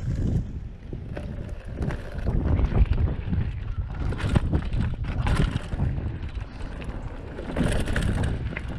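Mountain bike ridden fast down a dirt trail, heard from a body-mounted action camera: wind buffets the microphone while the tyres rumble over dirt and leaves. The bike rattles and knocks over bumps throughout, with louder noisy surges about four and eight seconds in.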